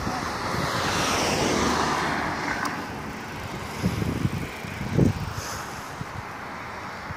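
A road vehicle passing, its tyre and engine noise swelling over the first two seconds and then fading, with wind buffeting the microphone in a few low thumps after the middle.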